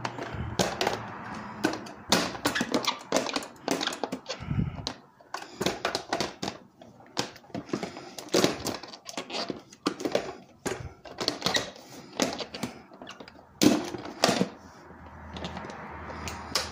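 Irregular plastic clicks, taps and knocks of a Ninja blender's jar and lid being handled and pushed onto the base as someone tries to get them to lock in place; the blender is not running.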